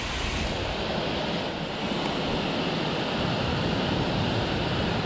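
Steady rush of water pouring over a dam spillway.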